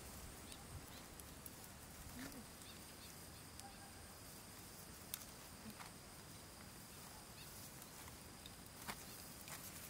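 Near silence: faint outdoor ambience with a steady faint high-pitched hum and a few soft, scattered clicks.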